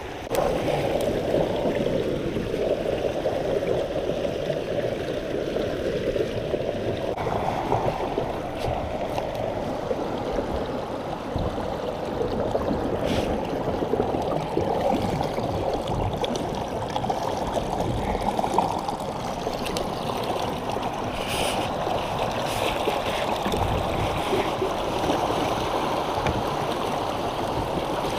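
Creek water rushing over a small waterfall, a steady wash of noise that turns hissier about seven seconds in.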